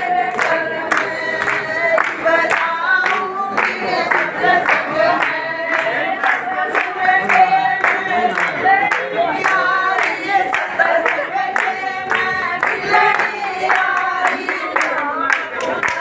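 A group of voices singing a Hindu kirtan (devotional chant) together, with handclaps keeping a steady beat of about three claps a second.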